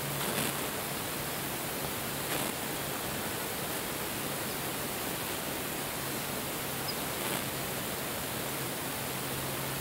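Steady, even hiss with a faint low hum that drops away about half a second in and returns near the end; three faint knocks come about half a second, two and a half and seven seconds in.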